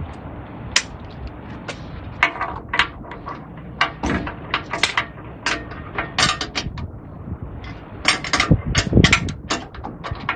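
Kobalt torque wrench and socket clicking and clinking as the wrench is fitted to a hitch bolt and pulled to tighten it toward 210 foot-pounds, with a quick run of clicks near the end.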